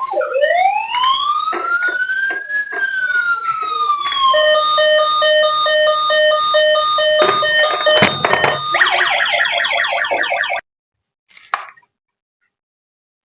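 Toy police car's electronic siren cycling through patterns: a slow rising and falling wail, then a steady pulsing beep, then a fast warble. It cuts off suddenly about ten seconds in, followed by a couple of faint clicks.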